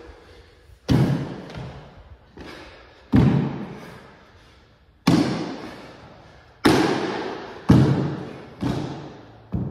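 Heavy foot stamps on a hardwood floor during a kung fu double axe form, about seven in all at uneven intervals, each a sharp thud that echoes briefly in the large room.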